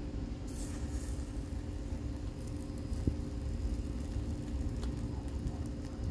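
Steady low machine hum with a faint crackle from a ribeye steak searing over charcoal. Metal tongs give a single sharp click against the grill grate about three seconds in.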